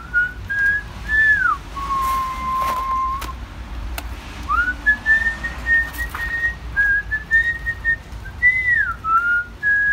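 A person whistling a slow tune: held notes with sliding rises and falls, pausing briefly about halfway, over a low steady rumble.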